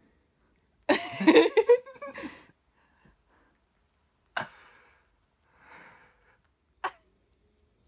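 A person's brief wordless vocal sound, like a sigh or laugh, about a second in. Later come two sharp clicks and a short soft rustle.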